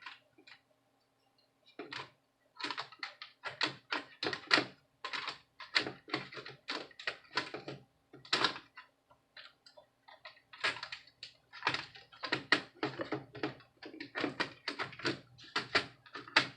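Irregular plastic clicks and taps of laptop parts being handled as the motherboard is fitted back into the chassis, starting about two seconds in and coming thick and fast from then on.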